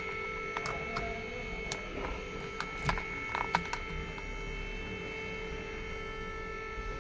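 A steady electrical-sounding hum with several irregular sharp clicks and taps, bunched about two to four seconds in.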